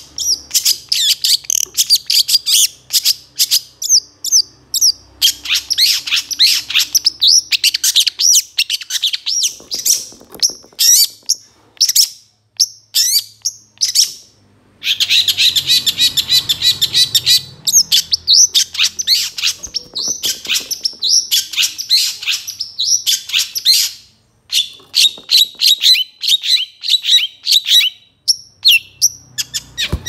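Long-tailed shrike (cendet) singing a fast, varied song of rapid chirps, whistles and trills packed with mimicked phrases, broken by a few short pauses.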